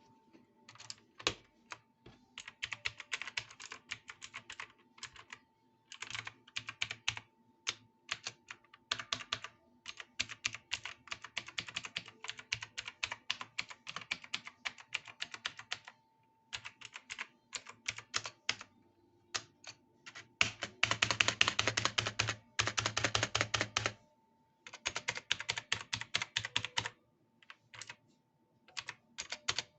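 Typing on a computer keyboard: bursts of rapid key clicks broken by short pauses, with the fastest and loudest run a little past two-thirds of the way through. A faint steady tone hums underneath.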